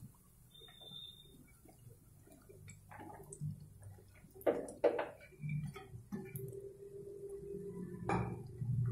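Chopped okra tipped from a steel bowl into a hot nonstick kadhai: scattered light taps and clicks as the pieces land, with two sharper knocks about halfway through. A steady hum comes in during the second half.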